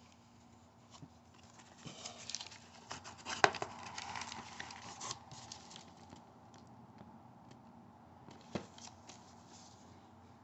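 Hands handling a cardboard shipping box and the plastic blister-packed diecast cars inside it: rustling, scraping and light clicks, busiest about two to five seconds in. A sharp knock comes about three and a half seconds in, and another near the end.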